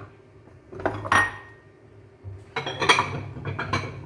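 Cups clinking and knocking against each other and a shelf as they are put away and arranged in a kitchen cabinet: a clink with a brief ring about a second in, then a quick run of clinks and knocks from about halfway.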